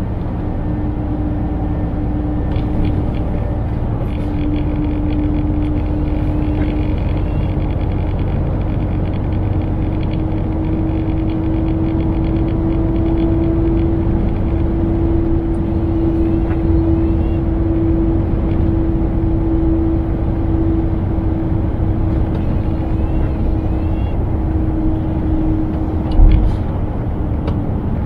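Scania truck on the move: a steady engine drone over road rumble, its pitch slowly rising and then easing back. A single sharp low thump near the end.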